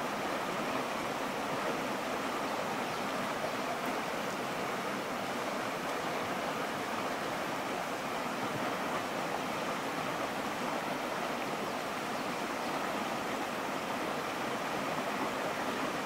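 Shallow mountain stream running over a pebble and stone bed: a steady, even sound of flowing water.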